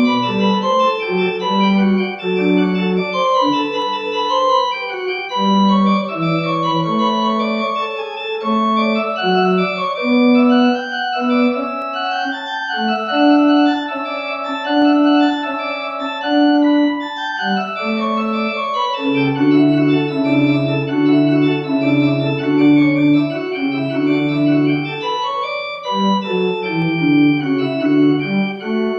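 Organ playing: sustained chords over held bass notes, with melody lines moving above them.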